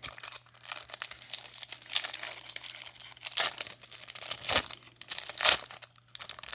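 Wrapper of a trading card pack crinkling and tearing as it is opened by hand, an irregular crackle with a few sharper, louder rips about three and a half, four and a half and five and a half seconds in.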